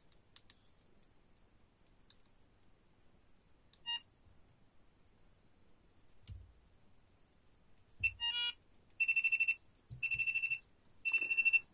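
Armachat LoRa messenger's buzzer sounding a message-received alert: a short run of beeps about eight seconds in, then a high, trilling beep repeated about once a second. Before it come a few light taps on the keypad and a single short beep about four seconds in.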